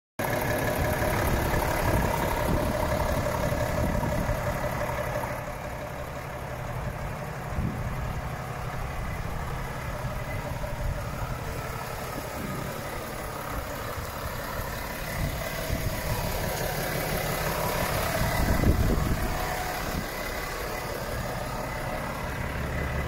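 Volvo FH 540 truck's 13-litre straight-six diesel engine idling steadily.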